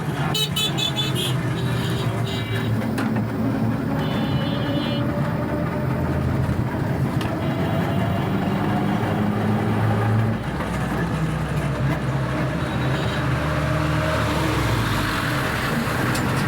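Road traffic: vehicle engines running steadily, with horns sounding several times: short toots near the start and about four seconds in, and a longer one in the middle.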